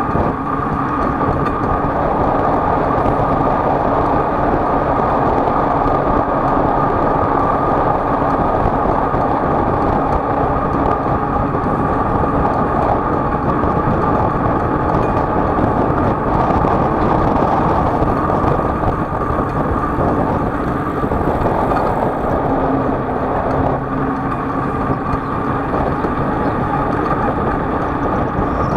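Motor vehicle travelling at a steady pace: continuous, even engine and road noise with a steady hum, no changes in speed.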